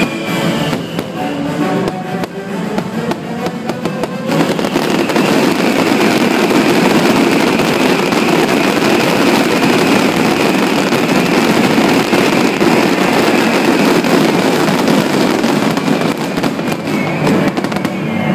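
Fireworks finale barrage: many shells bursting in quick succession over the show's music, thickening about four seconds in into a dense, continuous run of bangs and crackle that lasts to the end.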